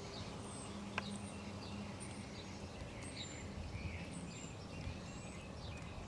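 Quiet outdoor background with scattered faint, short high-pitched chirps and a single sharp click about a second in.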